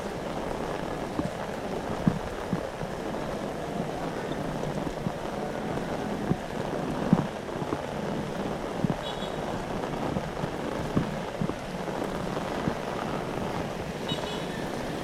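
Heavy rain falling steadily, with scattered sharp drops and splats cutting through the downpour.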